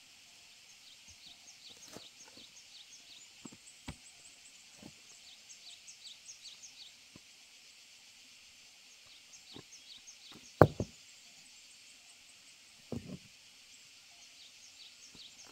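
Dull knocks and thuds of hand-working the pond's soil and setting a wooden stake, scattered through, the loudest a double knock about two-thirds of the way in and another a couple of seconds later. Behind them, quick high chirping calls repeat steadily.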